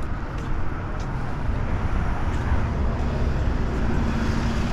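Street traffic: a steady rumble of passing vehicles, growing a little louder near the end.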